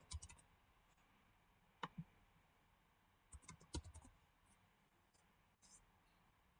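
Faint clicks from a computer mouse and keyboard: a few separate clicks, then a quick run of keystrokes a little past three seconds in.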